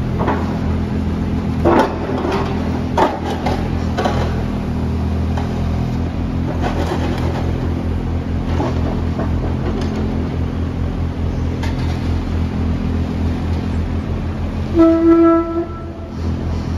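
2012 Kubota U27-4 mini excavator's diesel engine running steadily as the boom, arm and bucket are worked, with a few sharp metallic clanks in the first few seconds. Near the end there is one short horn beep.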